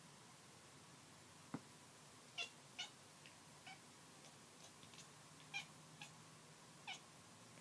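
Kitten making short, high chirping meows, about half a dozen brief calls at irregular gaps, after a soft click about a second and a half in.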